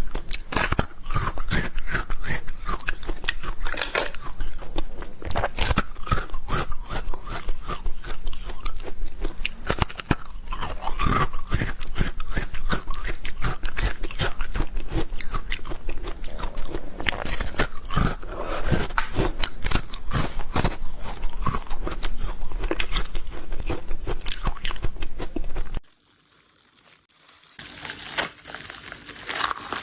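Watermelon being bitten and chewed, a dense run of irregular wet crunches with no talking. The crunching cuts off suddenly near the end, and after a short pause a different hissing sound starts.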